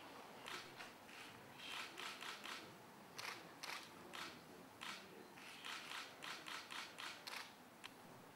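Faint camera shutters clicking: single clicks and short quick runs of three or four, about twenty in all.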